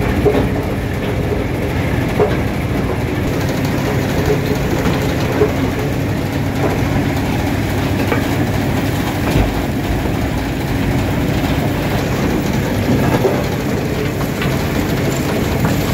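Electric-driven impact crusher running under load, crushing rock, with a steady heavy mechanical din and scattered knocks and clatter of stone. Its discharge conveyor is carrying the crushed rock.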